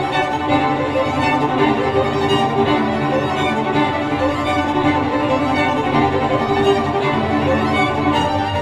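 Instrumental music led by violin with other bowed strings, held notes running steadily, played back through hi-fi loudspeakers in a speaker sound test.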